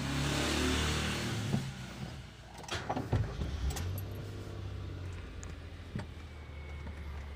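Nissan Almera 1.2's three-cylinder engine idling, a steady low hum heard inside the cabin. A rush of noise runs over the first two seconds, and there are a few clicks about three seconds in.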